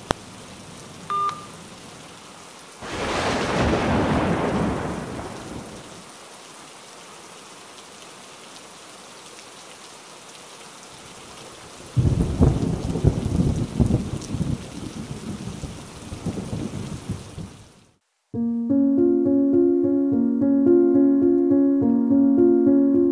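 Steady rain with two rolls of thunder, one swelling about three seconds in and fading over a few seconds, a second, louder and crackling, about twelve seconds in. A short beep comes about a second in. About eighteen seconds in the storm cuts off abruptly and piano music begins.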